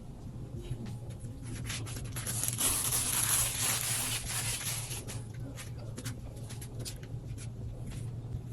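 Close-up handling sounds of an iPad and its packaging: scattered light taps and clicks, with a longer rubbing scrape about three to five seconds in, over a low steady hum.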